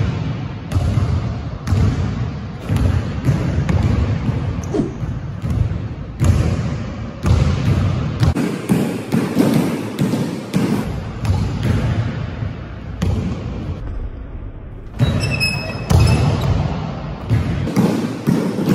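A basketball being dribbled on a hardwood gym floor. It bounces about once a second, each bounce echoing through a large hall.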